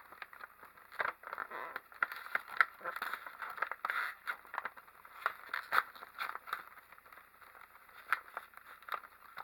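Plastic snack bag crinkling and crackling as it is handled and pulled open, with irregular sharp crackles.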